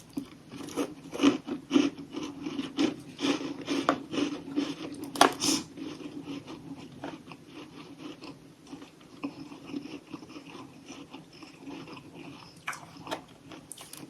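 Someone biting and chewing crunchy chunks of humidifier freezer frost. A run of sharp crunching bites comes in the first five seconds or so, followed by quieter steady chewing, then a couple more sharp crunches near the end.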